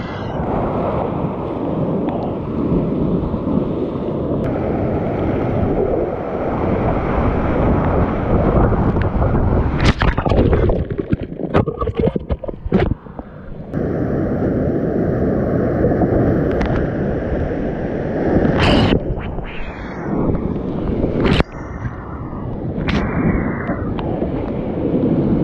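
Class 5 whitewater rapids rushing loudly around a kayak, a deep, dense rumble of churning water. Several sharp splashes break through as the boat and paddle hit waves, with a short dip in the rush about halfway through as the bow drives into foam.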